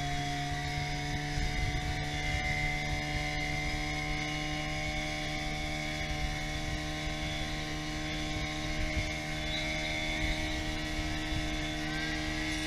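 Small outboard motor on an inflatable dinghy running steadily at speed, one even engine note that holds its pitch, with water rushing along the hull.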